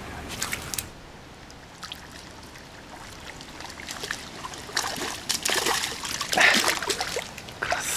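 Water splashing and trickling in short bursts, strongest in the second half, with a few sharp clicks about half a second in.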